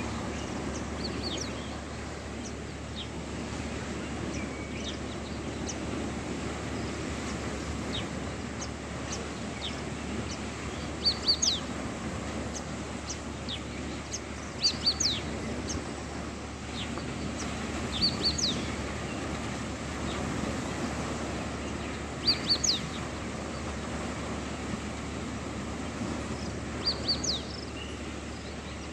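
A bird repeating a short phrase of quick, high chirps, five times at intervals of three to four seconds from about eleven seconds in, with fainter scattered chirps before that. Beneath it runs a steady low wash of small waves on the lake shore.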